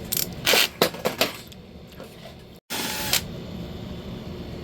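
Sharp clicks and short rattles of small parts being handled, then a brief burst of hiss a little past halfway.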